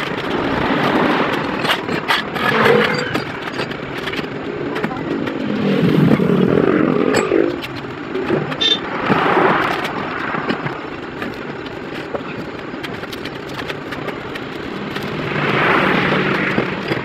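Motor vehicles passing on the road, their engine noise swelling and fading about four times, with scattered short knocks and clicks.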